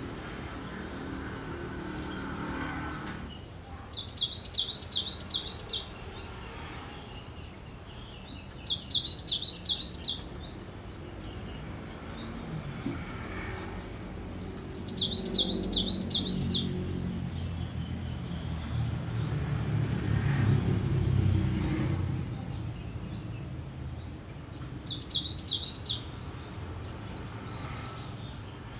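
Cinereous tit singing in four bursts, each a quick run of repeated high, sharp notes lasting a second or two, with pauses of several seconds between. Under the song a low rumble swells and fades in the middle.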